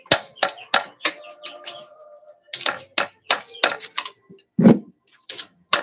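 Claw hammer tapping a nail through a thin metal sheet on a wooden board, punching holes. The blows come quickly, about three a second, in short runs with brief pauses, and one deeper, heavier knock falls a little before the end.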